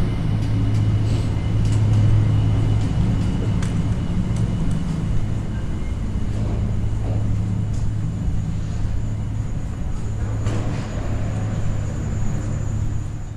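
Gondola lift station machinery running with a steady low hum, with scattered clicks and knocks over it.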